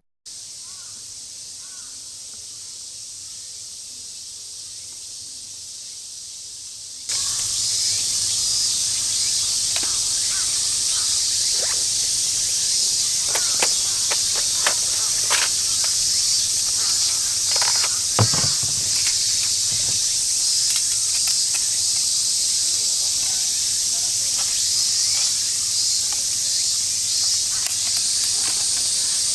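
Steady high-pitched chorus of insects, with a few scattered clicks. It starts abruptly about seven seconds in, after a quieter stretch.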